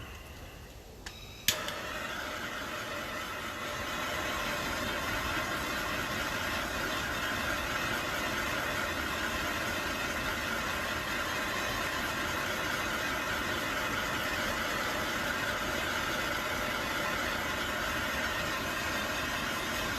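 Steady rushing hiss of a heating tool, started with a sharp click about a second and a half in and swelling slightly a couple of seconds later, heating the connector on 4/0 cable for soldering.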